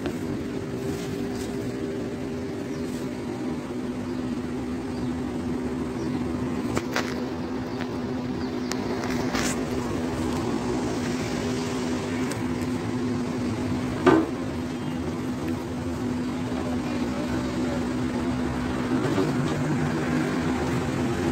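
Steady mechanical hum with a constant low tone, and a single sharp click about 14 seconds in.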